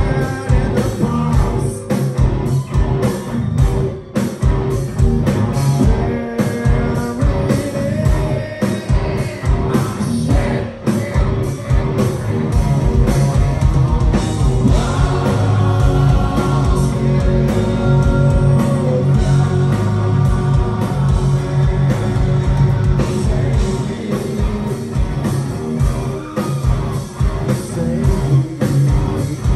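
Live hard rock band playing through a concert PA: distorted electric guitars, bass and drums, with a man singing, heard from the crowd.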